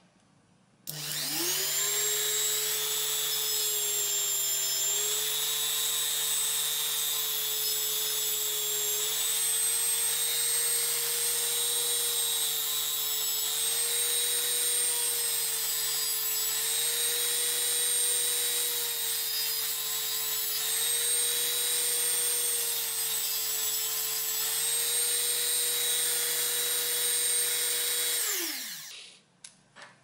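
Dremel rotary tool spinning up about a second in to a steady high whine as a flattened metal hairclip is ground down against its abrasive stone, the pitch dipping slightly every few seconds. It is switched off near the end and winds down with a falling whine.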